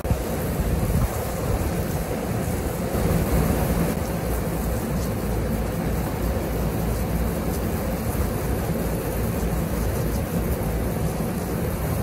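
Steady rushing of a rooftop AC unit's condenser fans, running with the compressor held off to dry the freshly washed microchannel coil, mixed with water spraying from a hose.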